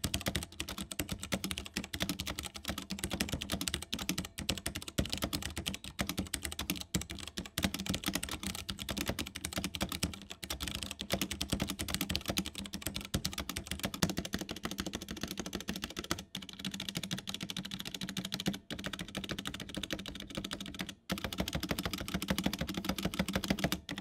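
Typing on a Ducky One 2 Mini Year of the Rat hot-swap 60% mechanical keyboard with Cherry MX Brown switches, a bare stainless steel plate and a plastic case: a fast, continuous run of key clacks with a few brief pauses. It sounds okay rather than great, with some resonance that the reviewer puts down to the spacebar stabilizers and the undampened plastic case.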